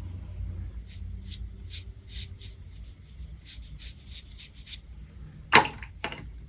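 Art supplies handled on a desk: a string of short, light scratchy strokes, then a sharp knock about five and a half seconds in and a softer one just after, over a low steady hum.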